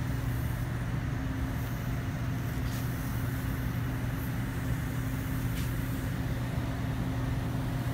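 Steady drone of running paint-booth machinery, a rushing noise with a constant low hum, while a car is being sprayed.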